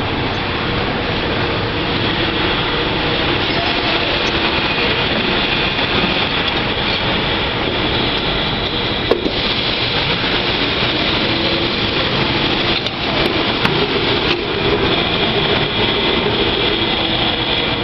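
Automated conveyor and assembly machinery running: a steady, loud mechanical clatter and hum. A few sharp clicks cut through it, one about nine seconds in and several between thirteen and fifteen seconds.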